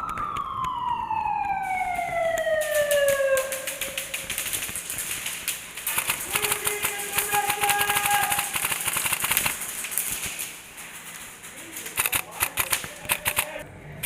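A siren wail falling slowly in pitch over about three seconds, followed by bursts of rapid full-auto airsoft gunfire, a fast even rattle of clicks, in several long strings.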